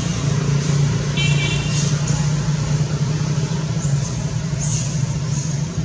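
Steady low engine drone, like a motor vehicle running, with a few short high-pitched chirps about a second in.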